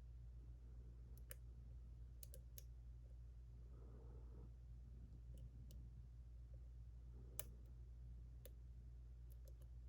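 Faint, scattered metallic clicks of a lock pick working the pins of a JPM Surf lock, with a sharper click about seven seconds in, over a low steady hum.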